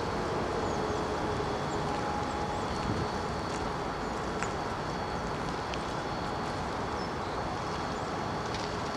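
Steady outdoor background noise, a wash of distant traffic and wind. Over it, the low tone of a distant siren falls in pitch and fades out in the first second or so.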